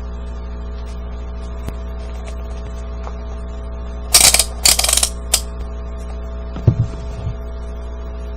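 Steady electrical mains hum from bench equipment, with a short double clatter about four seconds in and a soft low thump a couple of seconds later, as tools are picked up and handled on a workbench.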